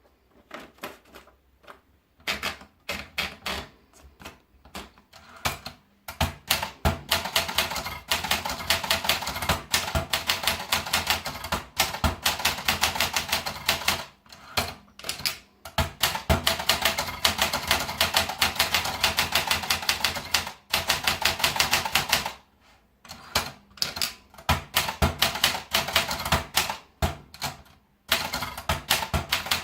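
Olympia Splendid 33 manual portable typewriter being typed on: scattered key strikes at first, then fast runs of typing broken by a few short pauses.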